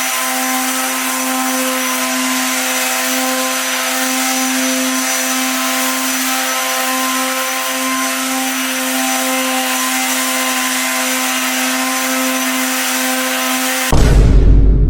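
Electric power tool, a saw by the scene, running free at a steady pitch: a constant whine with overtones over a hiss, not cutting. It stops abruptly about a second before the end as a much louder low booming sound takes over.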